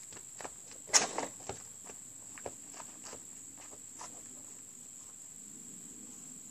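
A basketball strikes a portable hoop with one sharp knock about a second in, followed by a few lighter knocks of the ball and footsteps on the dirt over the next few seconds. Crickets trill steadily in the background.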